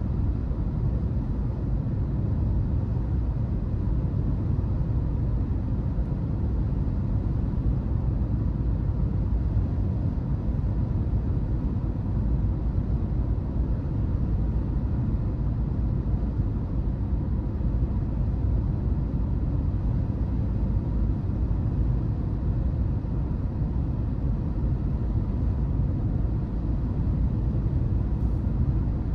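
Car driving at steady speed: a continuous low rumble of road and engine noise, with no changes.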